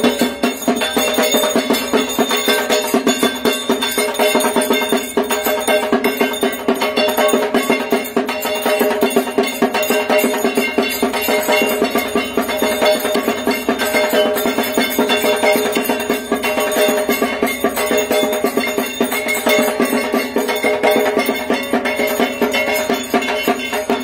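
Drums beaten in a fast, unbroken rhythm with ringing metal bells over them: the percussion that accompanies a Durga Puja evening arati.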